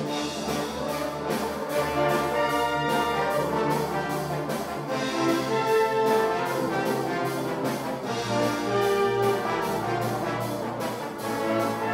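Orchestral music led by brass, playing sustained chords over a steady beat.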